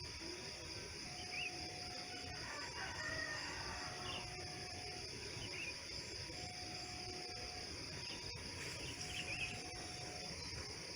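Rooster crowing about three seconds in, with small birds chirping over a steady high insect drone. A faint tone sounds for about a second, repeating roughly every three seconds.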